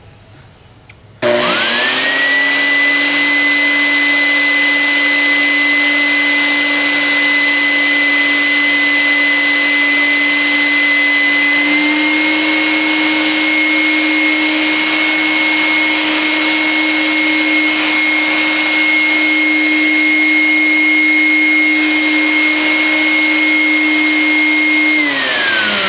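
A Dirt Devil Spot Scrubber carpet cleaner's motor switches on about a second in, its whine rising quickly to a loud, steady high pitch. The pitch steps up slightly about halfway through, and the motor winds down with a falling whine just before the end.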